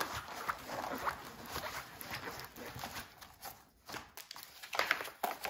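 Rustling and crinkling of a rolled diamond-painting canvas and its plastic cover as it is worked loose from a foam roller by hand, with a louder rustle near the end.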